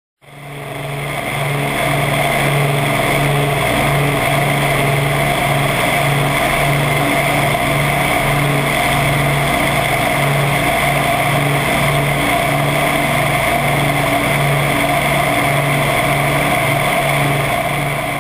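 Piston engines of a four-engined Avro Lancaster bomber running steadily, heard from inside the cockpit as a loud drone with a slow, regular throb as the engines beat against each other.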